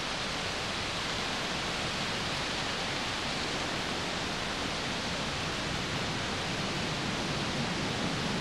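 Steady, even rushing noise outdoors, unbroken and without distinct events.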